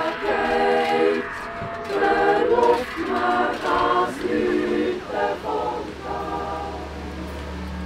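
A choir singing unaccompanied, holding chords phrase by phrase. Near the end the singing fades and a soft, steady low musical drone takes over.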